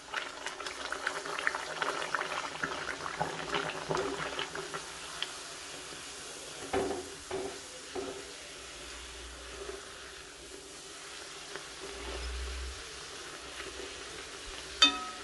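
Bhatura dough deep-frying in hot oil in a steel kadai: dense crackling sizzle for the first few seconds, settling into a steadier fizz as it puffs up. A few dull knocks of the skimmer come about halfway through, and near the end there is one sharp, ringing clink of the metal skimmer against the steel pan.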